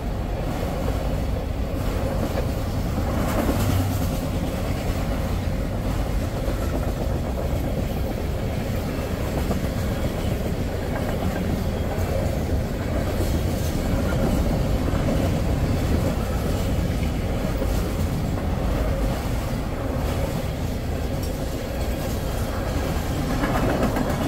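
Norfolk Southern freight train's cars rolling past: a steady rumble of steel wheels on rail.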